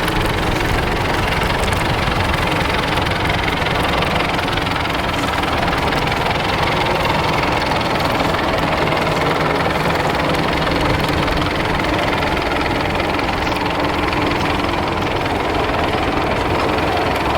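Vintage tractor engine running steadily, with a dense low chugging beat.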